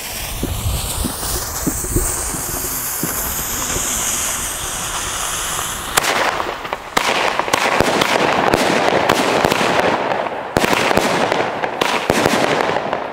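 Xplode Lucky 9, a small 9-shot 20 mm consumer firework battery: its fuse hisses for about six seconds, then the battery starts firing with a sharp launch. A run of shots follows, with hissing and crackling between them.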